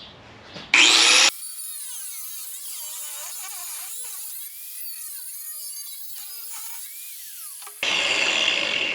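Angle grinder with a cutting disc cutting into rusted sheet steel, its pitch wavering up and down as the load on the disc changes. It comes in loud about a second in, sounds thin with the low end gone through the middle, and is loud again near the end.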